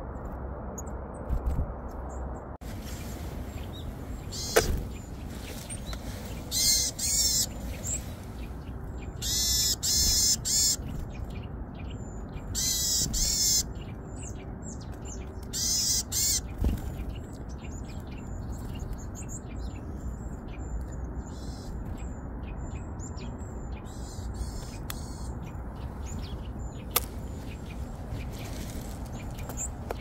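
Small songbirds calling: four short runs of loud, buzzy, squeaky calls in the first half, with many faint high chips scattered throughout, over a steady low background noise.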